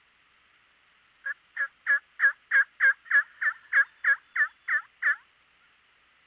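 A run of about thirteen turkey yelps, about three a second, each note dropping sharply in pitch. The notes grow louder over the first second and ease off slightly near the end.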